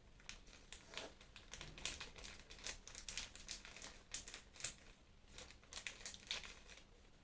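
Faint crinkling and scattered small clicks as a boxed figure's plastic parts and packaging are handled.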